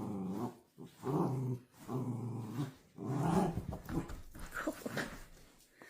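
A dog growling and grumbling in a run of drawn-out, pitched vocalizations: four longer ones, then shorter broken ones toward the end.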